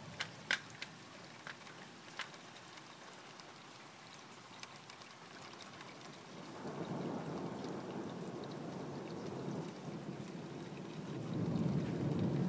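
Rain falling with a few sharp drop ticks in the first seconds; about six seconds in a low rumble of thunder builds and grows louder near the end.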